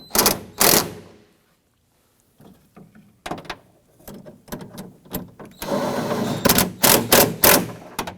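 Clicks and knocks of a tool tightening the bolts that clamp the door glass to the window regulator, with a short pause after the first second and a rapid run of knocks near the end.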